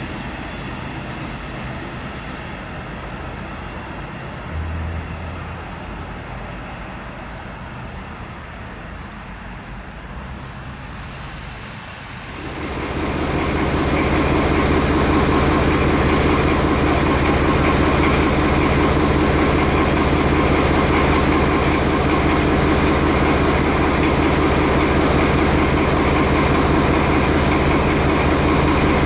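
A passenger train rolling away, its noise slowly fading. About twelve seconds in, the sound cuts to a MÁV M41-class diesel locomotive's engine running loud and steady as it approaches with its coaches.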